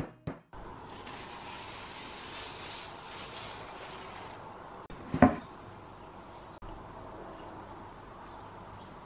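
Kitchen handling on a wooden cutting board: a soft rustling hiss for the first few seconds, then a single sharp knock about five seconds in, over quiet room tone.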